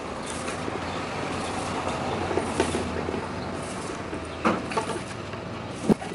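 A motor vehicle's engine running, swelling through the first seconds and easing off after about four and a half seconds. Two sharp knocks come near the end.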